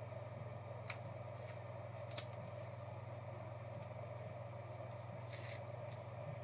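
Trading cards being handled, with two light clicks and a brief rustle over a steady low electrical hum.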